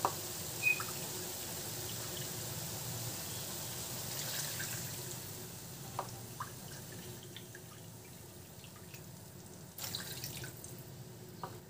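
Water poured from a plastic measuring cup into a steel wok of pork pieces in soy sauce, in several pours, with a stronger splash near the end. A light clink about a second in.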